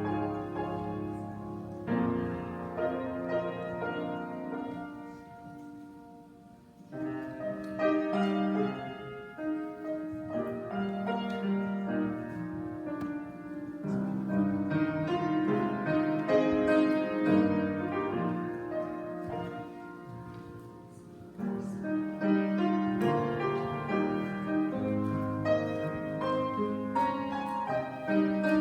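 Solo piano playing a slow piece of held chords and melody notes, fading softly twice and picking up again.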